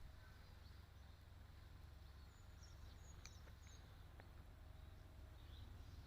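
Near silence: a faint low outdoor rumble, with a few faint, short high bird chirps about halfway through.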